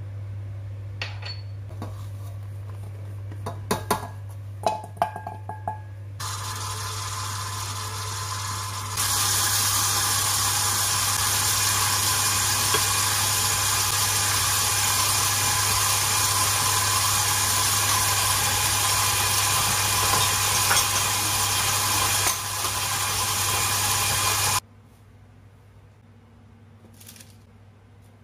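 Electric stand mixer with a flat beater running as it mixes cookie dough, a steady motor hum, with a few sharp clinks of small dishes as spices are tipped into the bowl early on. The mixer steps up in speed twice, about a fifth and a third of the way in, getting much louder, eases slightly later, and cuts off suddenly a few seconds before the end.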